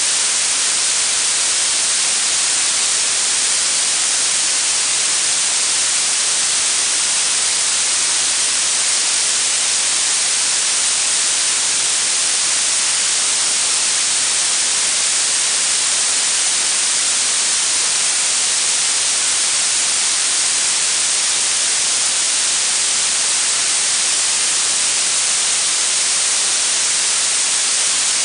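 Synthetic blue noise: a steady, bright hiss weighted toward the high end, without any change.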